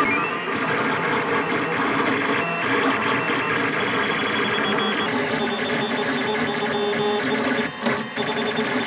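Lulzbot Mini 3D printer's stepper motors whirring as it prints: several pitched whines that jump and glide to new pitches as the print head and bed change speed and direction, over a light mechanical rattle. The sound dips briefly a little before the end.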